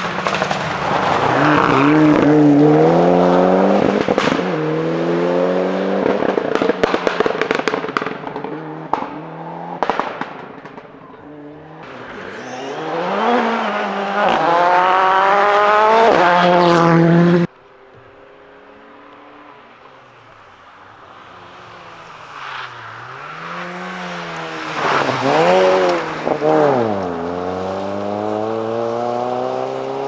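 Rally cars at full throttle on a gravel forest stage. First a Mitsubishi Lancer Evolution's engine revs hard up and down through gear changes, with a scatter of sharp crackles. The sound drops suddenly about two-thirds of the way through, and then a Mini Cooper rally car's engine builds as it approaches, climbing through the revs with gear changes and loudest a few seconds before the end.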